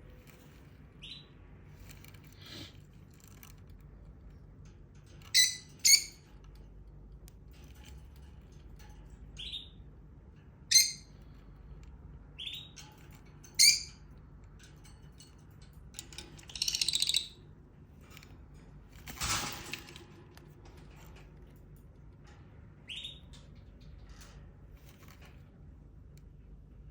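Lovebird giving short, sharp chirps at scattered intervals, with a few softer, brief rising cheeps between them. Near the middle comes one longer, noisier call, followed shortly by a brief rustle.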